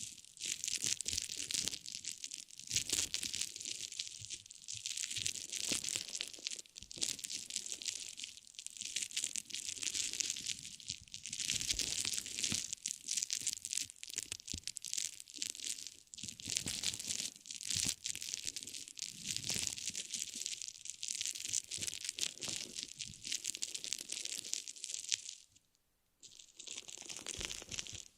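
Close-up crinkling and crackling of some material being squeezed and handled, in swells every couple of seconds, with a brief pause near the end.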